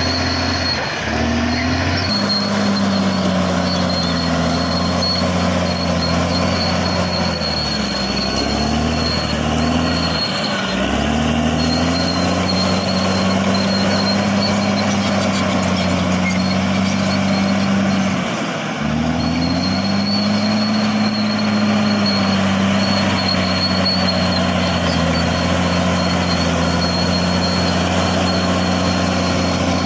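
Caterpillar D6R XL bulldozer's diesel engine running hard under load, its pitch sagging and recovering several times, most clearly about a third of the way in and again past halfway, as the blade pushes earth. A thin high whine runs along with it.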